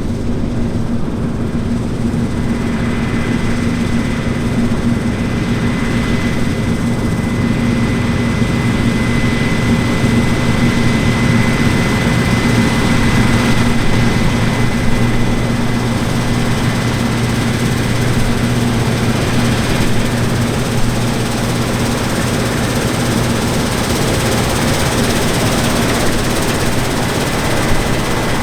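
Large diesel engine of heavy harvest machinery running steadily under load. A thin high whine rides on top from about two seconds in and fades out past the middle.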